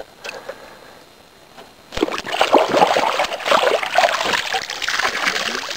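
A plucked goose carcass being swished and rinsed by hand in lake water, splashing and sloshing. The splashing starts suddenly about two seconds in after a fairly quiet start.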